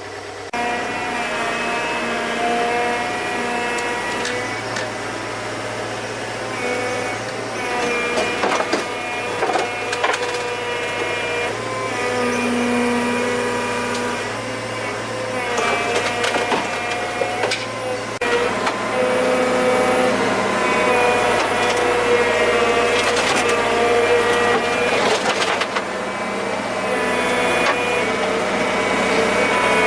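An engine running steadily, its pitch shifting every few seconds as the load changes, with repeated sharp cracks and splintering of wood.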